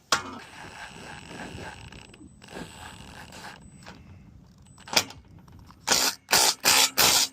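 A click, then scraping and handling of metal clamp hardware on the seamed roof, and near the end a cordless driver run in four short, loud bursts, the kind of trigger pulls used to run down clamp set screws.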